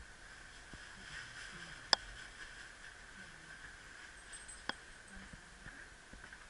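Electric train standing at a station, heard from the driver's cab: a steady high-pitched hum from the idle train, with two sharp clicks, one about two seconds in and one near five seconds.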